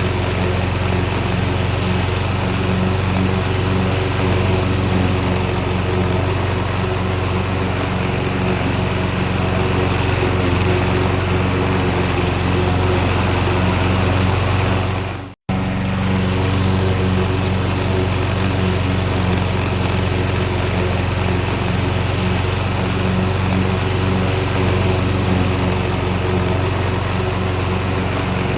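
Lawnmower engine running steadily at a constant speed. About halfway through the sound cuts out for a split second, then picks up again at once.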